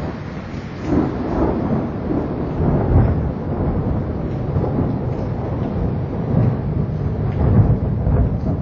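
Thunder rumbling on and on over falling rain, swelling about a second in and again a few times after.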